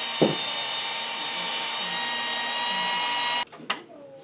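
Small high-speed power tool motor running steadily with a high whine, then switched off and stopping suddenly about three and a half seconds in. A short knock comes just after the start, and a few light clicks follow the stop.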